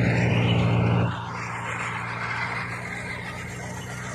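Tractor-driven wheat thresher running steadily at work, a low engine hum with a rushing noise over it, louder for about the first second and then settling to a steady level.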